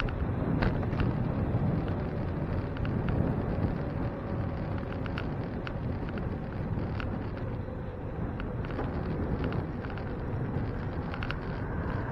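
Wind buffeting the microphone and road rumble from a bicycle in motion, with frequent small clicks and rattles scattered throughout.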